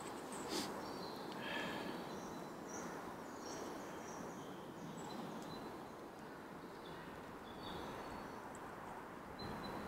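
Woodland ambience: scattered short bird chirps over a steady background hiss, with one brief click about half a second in.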